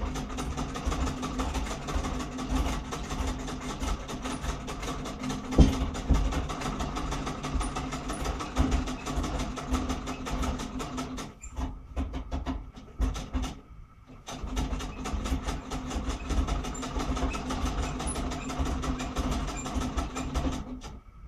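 Antique Singer treadle sewing machine running, its needle and mechanism clattering in a fast, even rattle with a low hum from the treadle drive. It stops briefly twice about two-thirds of the way through, then runs on until it stops near the end.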